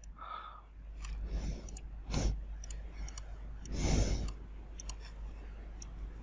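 Computer mouse clicking, a scatter of light, sharp clicks, with two louder soft breathy noises about two and four seconds in, over a steady low hum.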